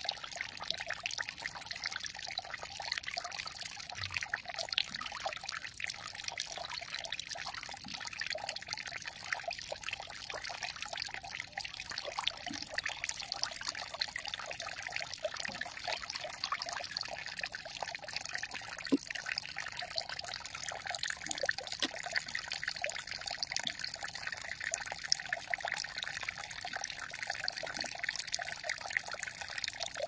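Small stream of water trickling steadily.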